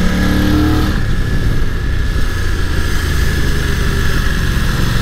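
Motorcycle's parallel-twin engine running at a steady throttle through a corner, its note held even, under strong wind rush on the helmet-mounted microphone.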